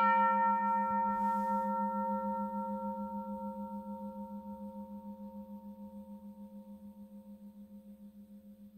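Cast 12-inch railroad crossing bell gong ringing out after a single hand-struck blow, a clear multi-toned ring that slowly fades with a steady pulsing waver in its low hum.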